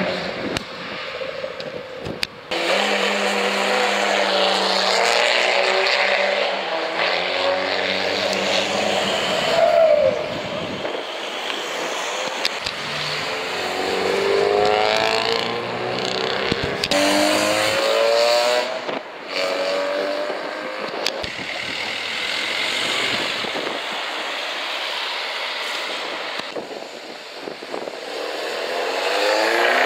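Several tuned cars drive past one after another and accelerate away, their engines revving with rising pitch as they pull through the gears.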